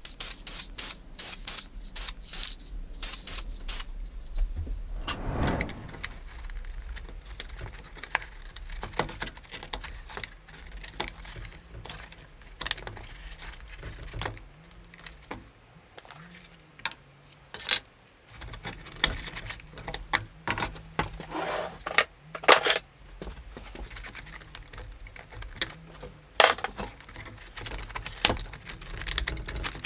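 Irregular small metal clinks, taps and scrapes of pliers working on the rusty steel headband of a helmet liner.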